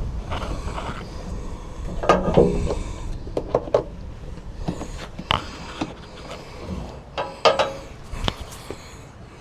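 Irregular knocks, clunks and scrapes of a large portable fridge being handled and shifted on its drawer slide, with two louder bouts of clattering about two seconds in and near the end.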